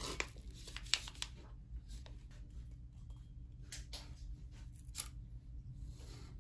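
A paper sencha tea-bag packet being handled, torn open and the bag set into a ceramic cup: a run of short crinkles, rustles and light taps.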